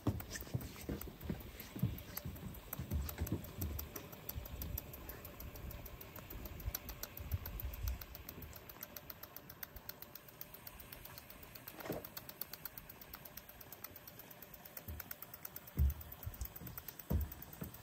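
Vintage Bing toy steam engine running, its working parts making a fast, even ticking. A few irregular low thumps, louder in the first half and once near the end.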